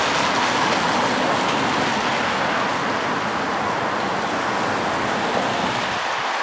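Steady, even rush of heavy rain falling in a thunderstorm.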